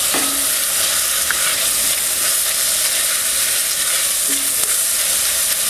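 Diced bacon, onion, carrots and celery sizzling steadily in bacon grease in an enamelled cast-iron Dutch oven, with a silicone spatula stirring through the pan as freshly pressed garlic goes in.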